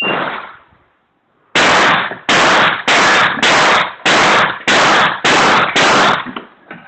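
A shotgun fired eight times in quick succession, about one shot every 0.6 seconds, each report ringing out briefly, followed by a few fainter reports near the end.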